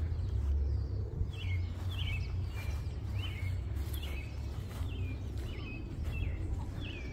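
A small songbird calling over and over, a quick falling chirp repeated more than once a second, starting about a second in. Underneath are a steady low rumble and faint footsteps on the trail.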